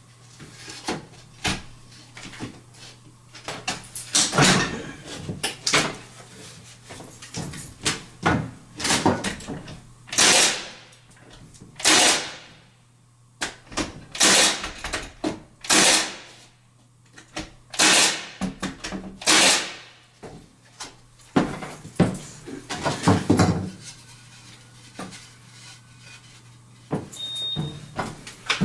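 Cordless Milwaukee 16-gauge finish nailer driving nails into wooden window trim, a sharp snap with each shot, fired many times at uneven intervals, along with knocks of the trim boards being handled.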